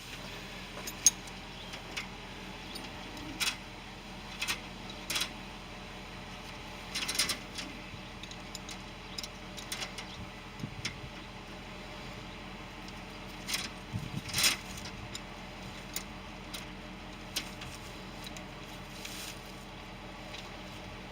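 Scattered light clicks and rattles, single or in short clusters, over a faint steady background hum.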